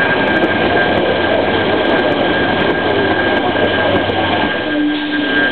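Narrow-gauge electric multiple unit (FEVE 3600 series) rolling past along the platform: a steady, loud rumble of wheels on rail, with a steady high whine over it.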